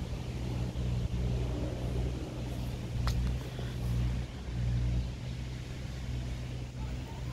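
Low steady mechanical rumble with a hum, with a brief high squeal about three seconds in.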